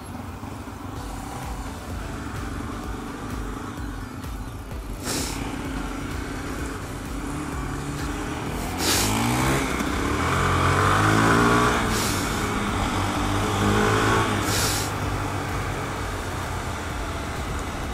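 Honda CB300 motorcycle engine heard from the rider's seat while riding, with wind noise over the helmet camera. About halfway through, the engine accelerates hard, its pitch climbing in rising sweeps broken by gear changes. A shorter rise follows a few seconds later.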